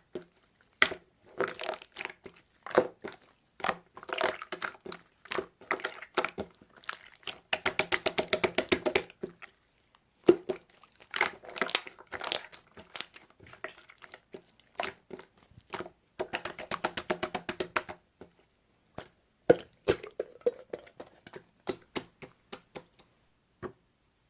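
Slime being squeezed and poked by hand, making irregular sticky clicks and crackling pops, with two quick runs of rapid popping partway through and again later.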